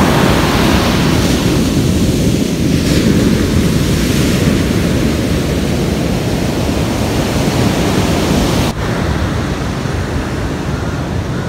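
Ocean surf breaking and washing on a sandy beach, a steady rushing noise, with wind rumbling on the microphone. About nine seconds in it drops suddenly and goes on a little softer.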